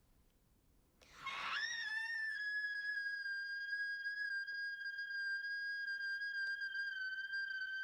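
A shrill, piercing shriek at one unwavering pitch. It starts about a second in with a brief upward swoop, holds eerily steady for about seven seconds, then cuts off suddenly near the end.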